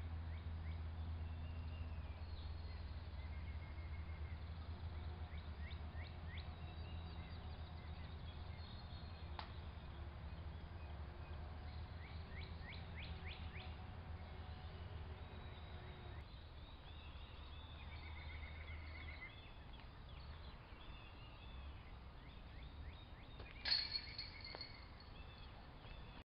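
Wild birds chirping and calling, with quick runs of short notes, over a steady low hum that fades about two-thirds of the way through. A sharper, louder call comes near the end.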